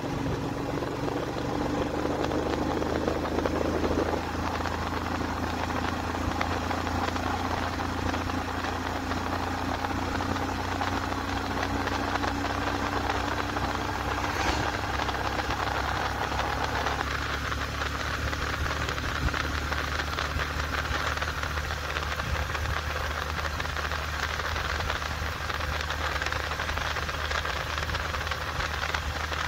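Motorcycle engine running steadily while riding, with an even rush of wind and road noise.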